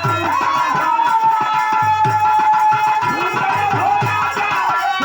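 Instrumental interlude of Bhojpuri birha folk music: a harmonium plays a long held melody line over a steady dholak beat, whose bass strokes slide in pitch.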